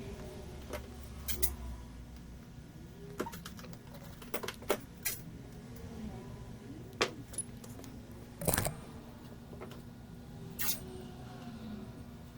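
Scattered light clicks and taps of small tools and parts being handled on an electronics repair bench, irregular, with a sharper click about eight and a half seconds in.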